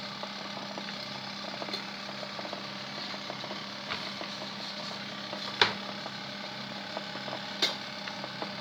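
Easymax mini washing machine running: a steady motor hum with small irregular clicks and a few sharper knocks, the strongest about five and a half and seven and a half seconds in.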